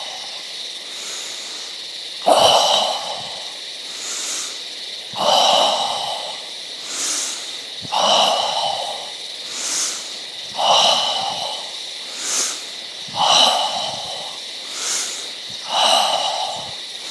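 A person breathing in and out slowly and deeply, voicing a breathy, whispered qigong healing sound on each long out-breath: six exhalations about every two and a half to three seconds, with quieter, hissing in-breaths between.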